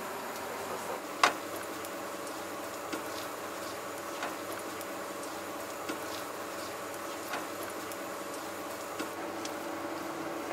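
Metal spatula tapping and scraping in a frying pan as butter is stirred and flour is worked into it, a few light ticks spaced a second or two apart, the clearest about a second in, over a steady low hum.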